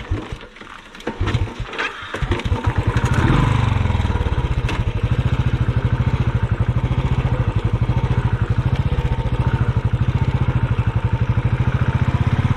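Motorcycle engine starting about two seconds in after a few knocks, a short rev that falls away, then running steadily with an even pulsing beat.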